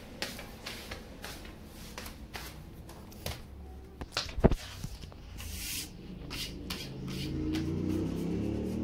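Handling noise on a phone's microphone: a run of rustles and light taps as the phone is moved about against skin and clothing, with one sharp knock about halfway through. A low hum comes in over the last two seconds.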